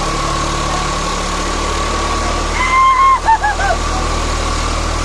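New Holland 6010 tractor engine running at low speed under load, a steady low drone. About two and a half seconds in, a high whistle-like tone sounds for about half a second, followed by three short chirps.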